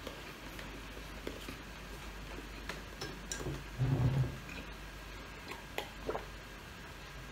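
Eating sounds close to the microphone: chewing and small mouth clicks, a short low sound about four seconds in as a heavy glass mug is picked up, and a couple of sips from it about six seconds in.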